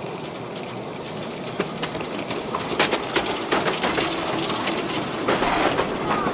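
Narrow-gauge field-railway steam locomotive and its open passenger cars rolling slowly past, over a soft steam hiss. The wheels click over the rail joints, the clicks coming thicker and louder from about halfway through as the cars go by.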